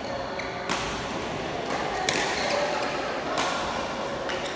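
Badminton rally: sharp racket strikes on the shuttlecock, four in all, roughly one every second and a half, in a large hall.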